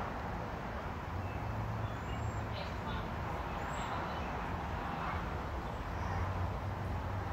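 Steady outdoor background rumble with a low hum, and faint distant voices.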